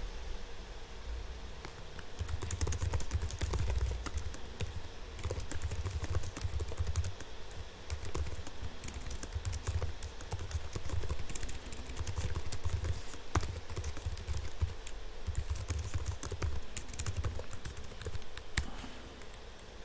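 Computer keyboard typing: irregular runs of quick keystrokes with short pauses between them.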